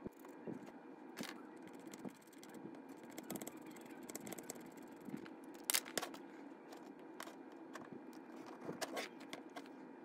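Small metal model-locomotive parts faintly clicking and scraping as they are handled and fitted together by hand, with a sharper click a little past halfway and a few more near the end.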